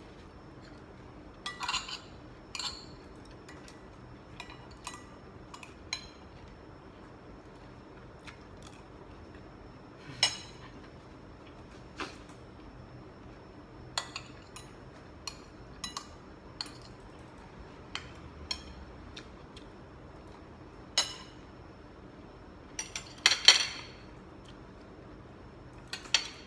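Cutlery clinking against a plate or bowl now and then while eating, in sharp, scattered knocks with a louder run of quick clinks near the end.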